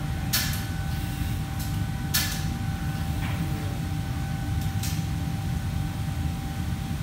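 Commercial kitchen background: a steady low machinery hum with a faint steady whine over it, broken by a few short clatters.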